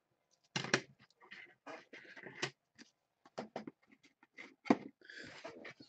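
Soft clicks and rustling from gloved hands handling a trading card, with one sharper tap about three-quarters of the way through and a brief hiss near the end.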